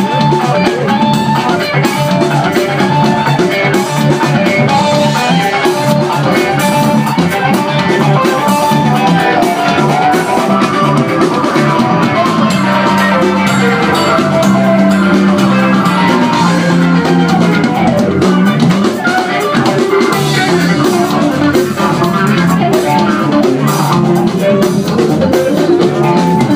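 Live funk band playing an instrumental with electric guitar and drum kit at full volume, heard from within the audience. A repeating riff gives way to longer held chords about halfway through.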